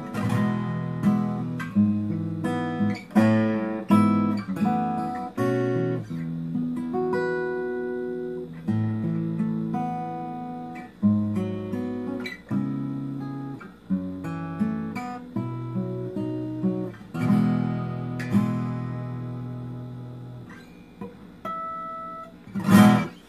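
Protégé SA-3C acoustic guitar played solo: chords strummed and picked, changing about every second, with a few ringing single notes near the end and one sharp, loud strike just before it stops.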